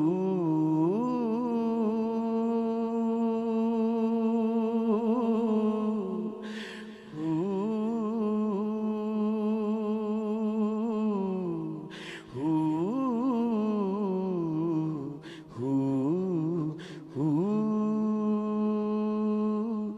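Solo male voice singing a devotional Punjabi kalam, drawing out long, wavering held notes. Short breaths are heard between the phrases, about four times.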